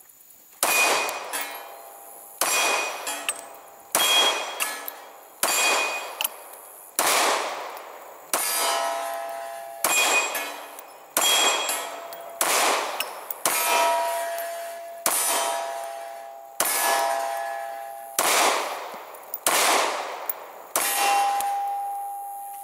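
Gen 4 Glock 19 9mm pistol firing a magazine of steel-cased ammunition at a slow, even pace: about fifteen shots, roughly a second and a half apart. Each shot is followed by a metallic ringing clang that fades before the next.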